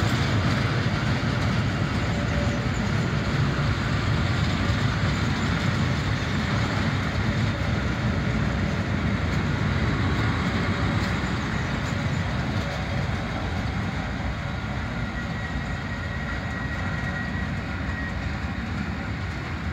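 Rhaetian Railway metre-gauge train of empty stake flat wagons rolling along the rails, a steady low rumble of wheels on track that slowly fades as the train draws away.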